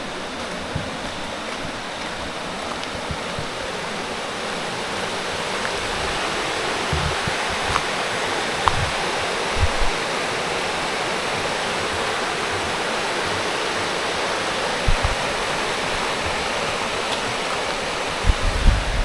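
Steady rush of flowing water that grows a little louder over the first several seconds, with a few brief low thumps.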